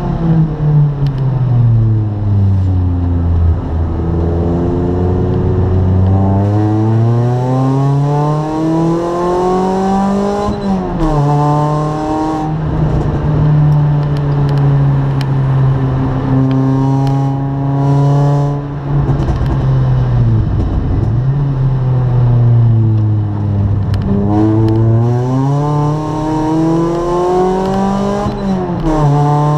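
Race car engine heard from inside the cabin, pulling hard with its pitch climbing, dropping sharply at a few upshifts, and sliding down as the car slows for corners before climbing again.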